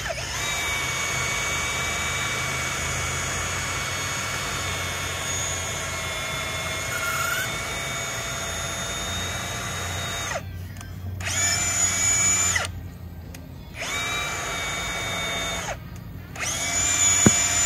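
Power drill boring through a wooden fence post into the horizontal brace rail for a brace pin. It runs steadily for about ten seconds, then in three shorter bursts, its whine winding down each time the trigger is released.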